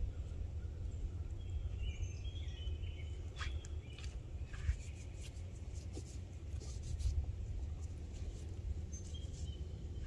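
A few short, high bird chirps over a steady low rumble, with scattered sharp clicks in the middle.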